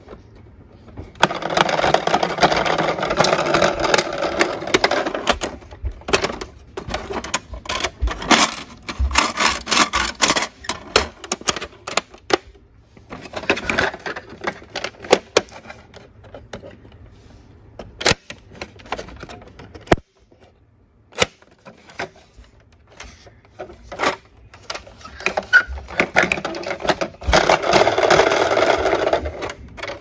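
A plastic toy ambulance being handled in a cardboard box: rattling and scraping plastic with scattered sharp clicks, in two longer stretches of dense rattling, one just after the start and one near the end.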